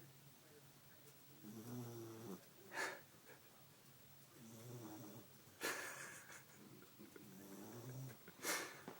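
A sleeping dog snoring, quietly: three slow breaths about three seconds apart, each a drawn-out low rumble followed by a short sharp burst of breath.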